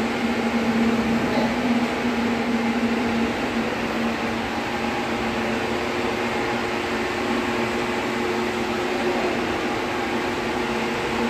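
Steady machine hum with a held low tone that fades out about three seconds in, and a slightly higher tone that comes in about five seconds in.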